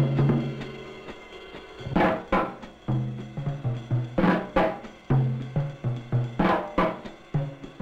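Background music carried by drums: a steady beat of low drum strokes, about three a second, with a pair of sharp hits about every two seconds.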